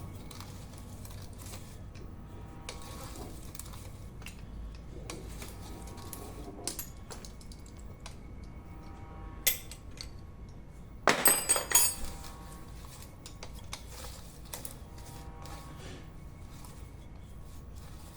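Metal hand tools clinking and clanking on a shock absorber strut while its top-mount nut is worked loose with a socket wrench and an Allen key held in locking pliers. Light clicks throughout, one sharp click about halfway through, and a quick burst of loud metal clanks shortly after.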